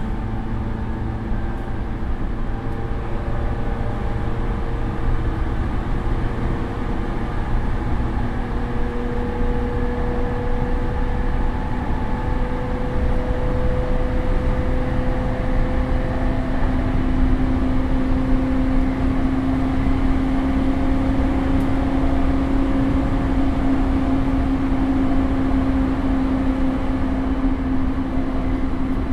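Interior running sound of a JR E231-series electric motor car with a Mitsubishi IGBT inverter drive, recorded on board: a steady rumble of wheels on rail under a motor whine that climbs slowly in pitch as the train picks up speed.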